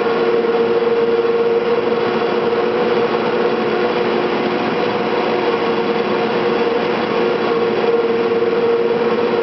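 Cable car powerhouse winding machinery running: the big sheaves turning and hauling the steel cables, a steady mechanical din with one strong droning hum that never changes.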